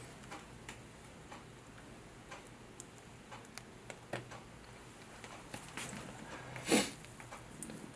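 Faint, irregular small clicks and wet ticks from gloved fingers and gauze squeezing pus out of an infected carbuncle, with one louder short rush of noise about seven seconds in.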